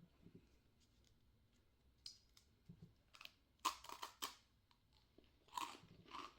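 Biting into and chewing a crisp cream-filled senbei cookie: a few faint clicks, then sharp crunches about three and a half seconds in and again near the end.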